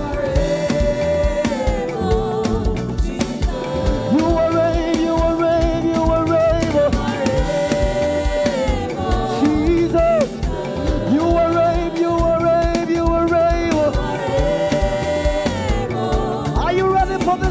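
Live gospel praise music: a band with a steady drum beat under long, sustained melody lines that swell and slide in pitch, with singing.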